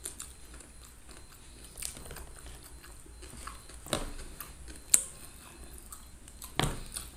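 Close-up eating sounds: chewing and lip-smacking as fish-head meat is picked off the bone by hand and eaten, with soft wet clicks throughout and a few sharp smacks, the loudest about five seconds in.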